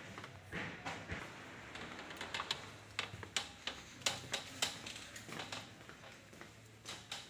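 A run of irregular sharp clicks and taps, thickest in the middle of the stretch, over a faint low hum.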